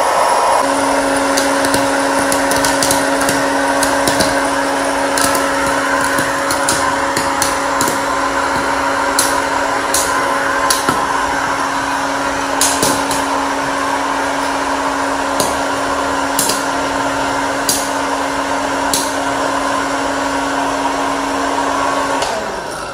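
Electric hot-air fryer running with a steady blower hum while popcorn kernels pop inside it, scattered sharp pops about once a second through the middle. The motor switches off near the end.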